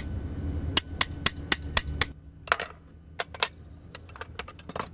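A farrier's hammer rapping on steel at a horse's hoof: a quick run of about six sharp, ringing metal strikes, about four a second, about a second in. Lighter, scattered metal ticks follow.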